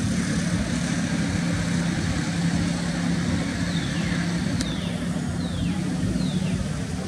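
A motor engine running steadily with a low hum. In the second half come four short falling chirps, with a sharp click just before the second one.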